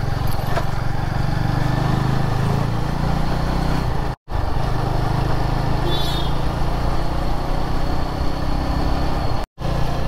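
Yezdi Adventure motorcycle's single-cylinder engine running steadily at riding speed, with wind and road noise, heard from the rider's helmet camera. The sound drops out twice in short silent gaps.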